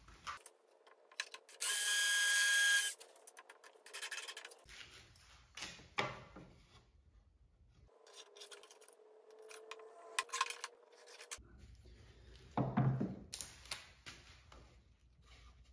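A cordless drill runs in one short burst, about two seconds in. After it come scattered knocks and scrapes of plywood pieces and a steel rule being handled on a workbench.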